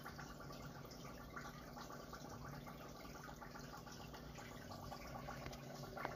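Aquarium water trickling faintly, with a steady low hum underneath.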